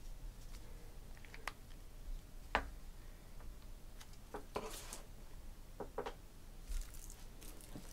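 Faint scattered clicks and light taps over quiet room tone, a little busier about halfway through and near the end.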